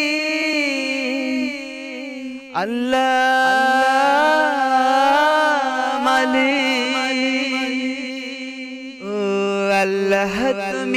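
Wordless sung introduction to an a cappella Bengali Islamic song: a voice holds long, wavering melismatic notes over a sustained low vocal drone, with a quick swooping slide about two and a half seconds in.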